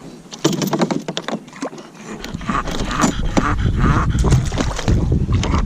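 A bulldog breathing heavily close to the microphone. A quick run of clicks and knocks comes in the first two seconds, and from about two seconds in the breathing turns louder and rougher.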